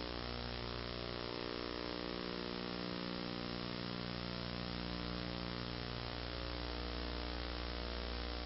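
Steady electrical hum and buzz, low and unchanging, with a faint hiss over it.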